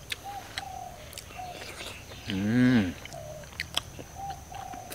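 People eating by hand, with mouth smacks and clicks as they chew and lick their fingers, and a short hummed vocal sound about two and a half seconds in that rises and falls in pitch. A bird calls in the background with short repeated notes.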